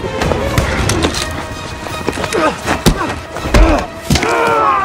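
Film fistfight sound effects: repeated punches and body blows landing, with grunts of effort, over background music.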